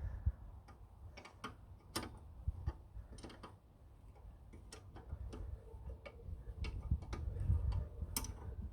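Irregular metallic clicks and taps of spanners working on the brake caliper bolts, some bunched close together, over a low rumble.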